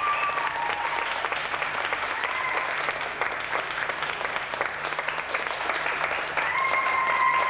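Audience applauding, a dense patter of many hands clapping. A high held tone sounds over it at the very start and again near the end.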